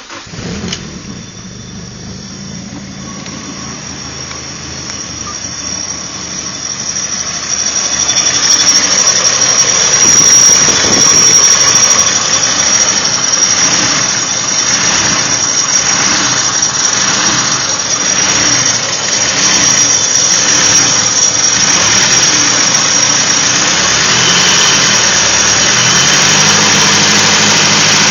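Rebuilt, fully forged Nissan SR20 inline-four running on its first start, with a high-pitched scraping squeal over the engine; it grows louder about eight seconds in and then holds steady. The owner wonders whether it is the piston rings wearing in.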